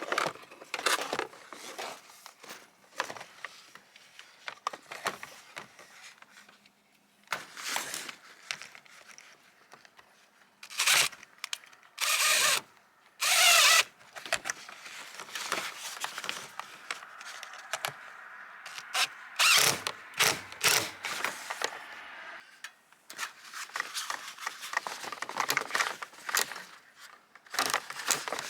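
Power drill running in several short bursts, typical of screws being driven, with clicks, scraping and handling clatter in between.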